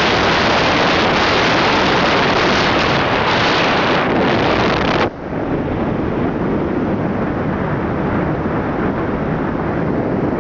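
Wind rushing over the microphone of a moving motorbike, a loud steady rush that drowns out any engine tone. About five seconds in it cuts abruptly to a duller, slightly quieter rush.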